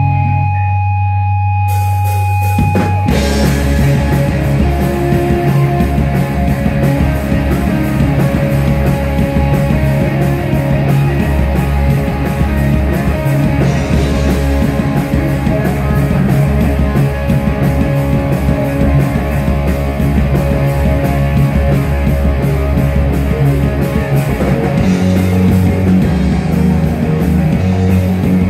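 A rock band playing live through amplifiers: electric guitars, bass and drums. It opens on a held low note, and the full band comes in about three seconds in with a steady beat.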